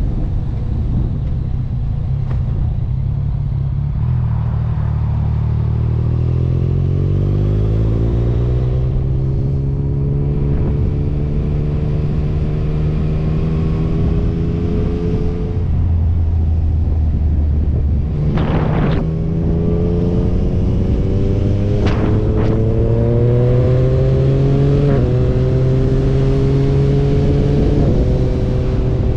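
Motorcycle engine pulling hard, its pitch climbing and then dropping back at each gear change, several times over, with a constant low rush of wind and road noise underneath.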